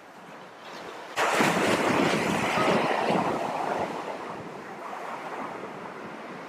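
Surf breaking on a sandy beach, mixed with wind on the microphone: the noise comes in suddenly about a second in, stays loud for a couple of seconds, then eases to a steady wash.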